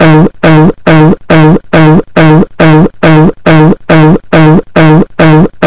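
One short shouted voice clip looped over and over, about two times a second, identical each time, with its pitch dropping at the start of each repeat.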